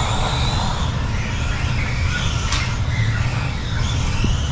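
Kyosho Mini-Z radio-controlled electric race trucks lapping the track, their small motors whining up and down in pitch as they accelerate and brake, over a steady low rumble. There is one sharp click about two and a half seconds in.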